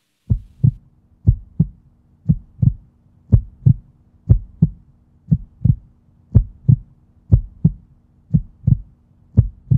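Heartbeat sound effect: paired low thumps in a lub-dub rhythm, about one pair a second, over a low steady hum.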